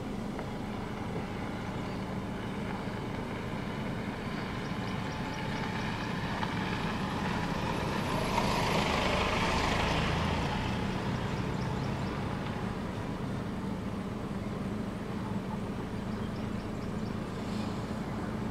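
A vehicle engine idling with a steady low hum, while a louder rushing sound swells up around the middle and fades away.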